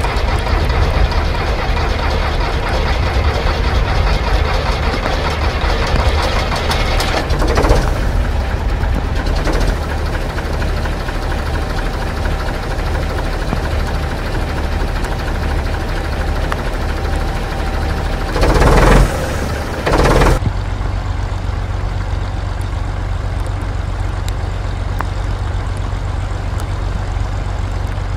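Heavy military recovery truck's diesel engine running steadily with an even low pulsing, and two short loud bursts of noise about two-thirds of the way in.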